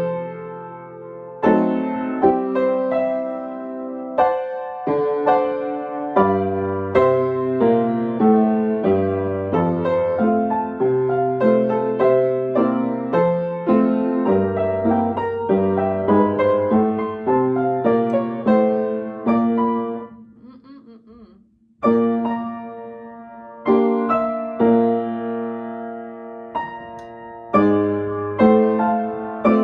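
Piano being sight-read: notes in both hands, bass notes under a melody, each note struck and dying away. The playing breaks off for about two seconds a little past the middle, then goes on.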